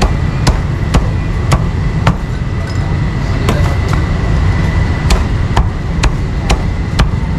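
Meat cleaver chopping meat on a chopping block: sharp strikes about two a second, with a pause of about a second midway, over a steady low background rumble.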